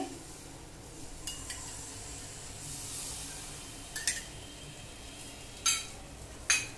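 Metal spatula stirring and scraping a besan and ghee mixture in a frying pan, with a faint steady sizzle. A few sharp clinks of a spoon against a small steel bowl.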